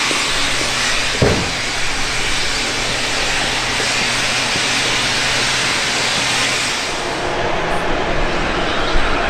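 Steam locomotive sound: a steady hiss of steam over a low hum, with a single sharp knock about a second in.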